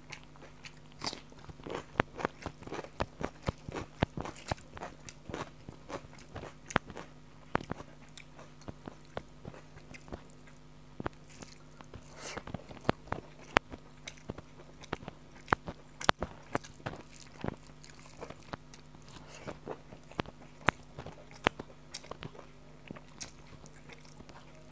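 Close-miked eating sounds of a mouthful of rice and fish curry eaten by hand: steady chewing with many sharp, irregular wet clicks and smacks, and the fingers working the rice on the plate between bites.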